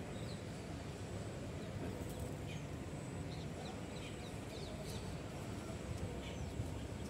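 Outdoor ambience: a steady low rumble with many short, high, falling chirps of small birds scattered throughout.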